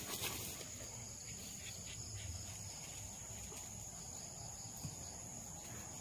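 Insects chirring steadily as one continuous high, thin tone, with a faint low rumble underneath.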